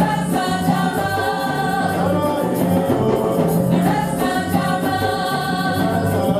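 Gospel music: a group singing together over a band with a steady, rhythmic bass line.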